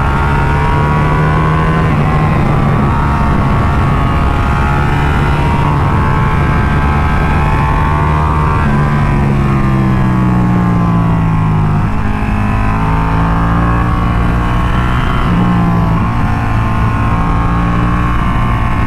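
Ducati Panigale 1299S's V-twin engine pulling hard through a run of bends, its pitch rising and falling with throttle and gear changes, with wind rushing over the bike-mounted microphone.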